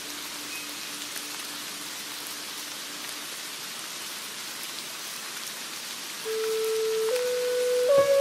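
Steady rain falling, an even patter. About six seconds in, a held melodic note enters and steps up in pitch: an instrumental piece beginning over the rain.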